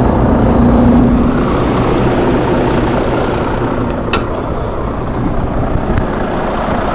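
Volvo D13 13-litre inline-six diesel in a 2018 Volvo VNL64T idling steadily, with a single sharp click about four seconds in.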